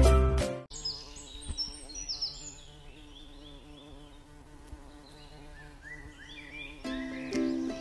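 Outdoor ambience after music cuts off: a steady buzzing hum like a flying insect, with short high chirps and whistles from birds.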